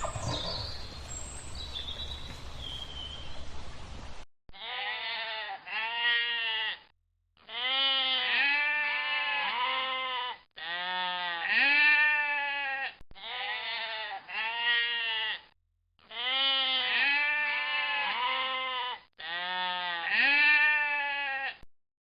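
A steady hiss with a few high chirps for about four seconds, then repeated bleating in short runs of two to four quavering calls, each run cut off by a brief silence.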